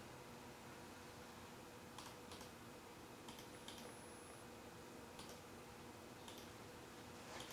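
Near silence: room tone with a faint steady hum and a handful of soft, scattered clicks.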